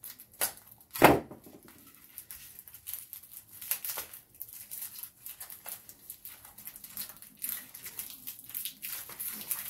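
Plastic wrapping and styrofoam packing being picked at and torn open by hand: a run of short, scratchy crinkling and tearing noises, with a louder crackle about a second in.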